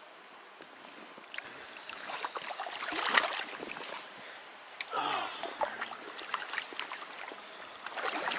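Shallow creek water splashing as a hooked brown trout thrashes and is grabbed by hand. The splashing is loudest about three seconds in, with the stream running behind and a brief wavering sound about five seconds in.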